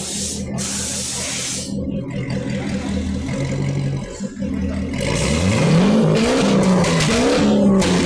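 2010 Chevrolet Corvette's V8 with a four-outlet exhaust revving. About five seconds in, the pitch climbs sharply and louder, then rises and falls in several quick blips.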